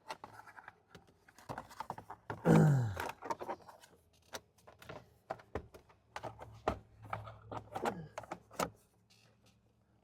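Scattered clicks and knocks of plastic interior trim panels and wiring being handled and fitted back into place in a Jeep's dash, with a short grunt about two and a half seconds in.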